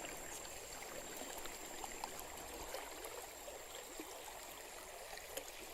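Creek water running steadily, a soft, even rush with a few faint ticks.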